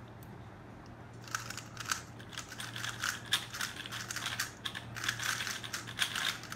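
A 3x3 speedcube being turned fast during a speedsolve: rapid, irregular plastic clacking of the layers, starting about a second in.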